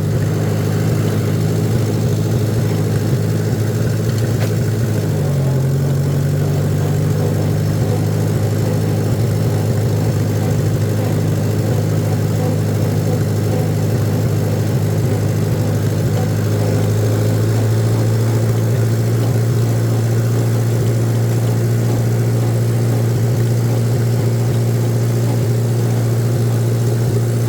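Tractor engine running steadily while driving, its note dropping slightly about five seconds in and growing a little louder later on.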